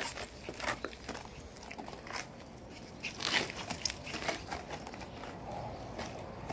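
Shiba Inu puppies play-fighting: scuffling and scrabbling on dirt and gravel, with a string of short sharp scuffs and clicks, the loudest about three seconds in.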